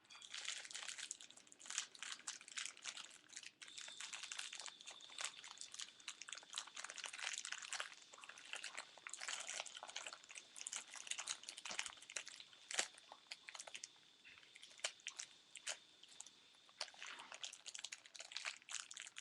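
Thin plastic packaging crinkling and crackling as it is handled and opened, with a steady stream of small clicks and crackles.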